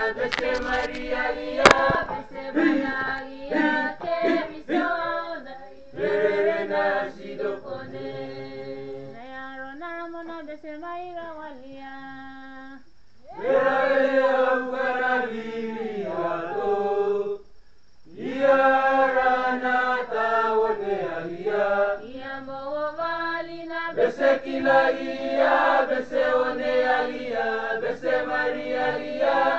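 Youth choir singing a Peroveta, a Papua New Guinean prophetic hymn, in several-part vocal harmony with long held chords. A sharp click comes near the start, and the singing breaks off briefly twice, about 13 and 18 seconds in.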